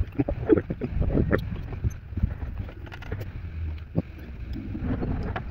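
Irregular metal clicks and knocks of hand tools on the bolts as the remaining water pump bolts are loosened and taken out of a 3800 V6 engine.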